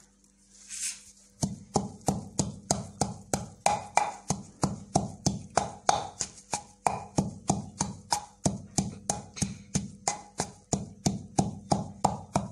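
Wooden pestle pounding fresh coriander and mint leaves in a clay mortar: a steady run of dull knocks, about three to four a second, starting about a second and a half in.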